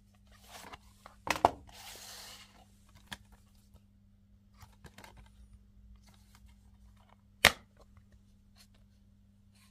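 Plastic Blu-ray case being handled on a tabletop: a sharp double clack about a second and a half in, a brief rustle, a few light taps, then the loudest snap about seven and a half seconds in as the case is clicked open. A faint steady hum sits underneath.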